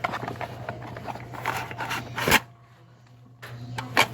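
Hands handling a vending machine's cash and parts: scattered small clicks and rustles, with two sharp knocks, one about two seconds in and one near the end, and a steady low hum underneath.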